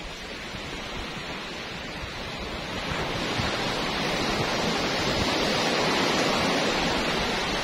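Surf breaking on the beach: a wave swells up about three seconds in, is loudest a little after the middle, then washes back and eases near the end.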